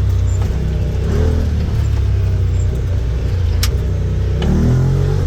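Turbocharged Can-Am Defender side-by-side engine running under throttle, its pitch shifting with the throttle and rising as it revs up near the end. A single sharp click sounds a little past halfway.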